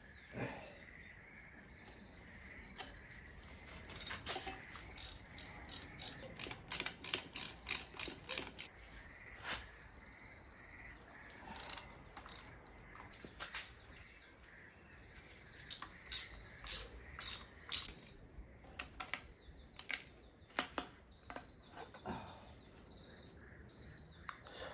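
Hand ratchet wrench clicking as bolts are worked loose on an engine, in quick runs of several clicks a second with short pauses between runs.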